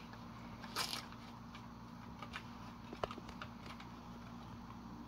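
Quiet handling noises from a balsa-and-tissue model airplane wing being pinned and checked on a workbench: a short soft rustle just under a second in and a few small clicks and taps, over a steady low hum.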